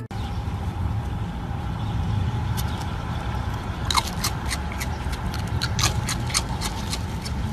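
A steady low rumble, with a run of sharp clicks starting about four seconds in as a raccoon's paws pick ring-shaped cereal pieces out of a person's palm.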